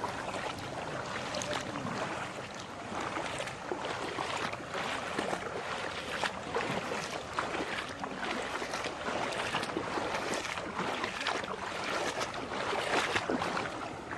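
Floodwater splashing and lapping, with wind on the microphone.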